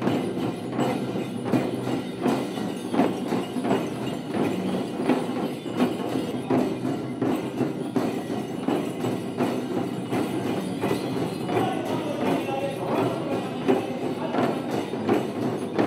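Several Nepali shamans' dhyangro frame drums beaten together in a fast, steady rhythm, with brass bells on their bandoliers jingling as they dance.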